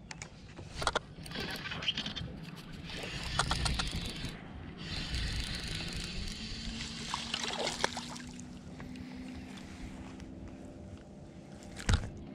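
A bass being reeled in on a spinning rod: the reel cranking, with water splashing at the surface as the fish is fought and lifted out. A single sharp knock sounds near the end.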